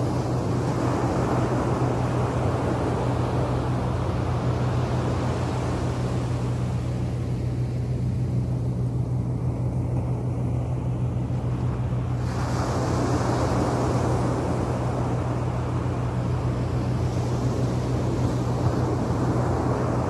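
Small sea waves breaking and washing up a sandy shore, with a louder surge of surf starting suddenly about twelve seconds in, over a steady low hum.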